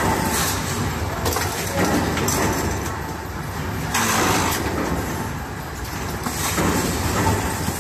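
Automatic paint roller frame handle and cage assembling machine running, a continuous mechanical clatter with several short bursts of hissing noise, the loudest about four seconds in.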